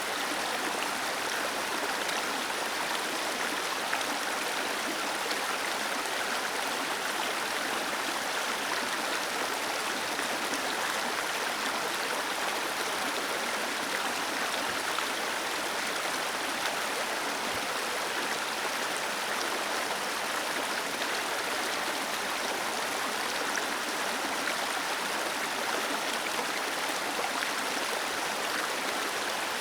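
Small waterfall cascading over rocks: a steady rushing of falling water with no change throughout.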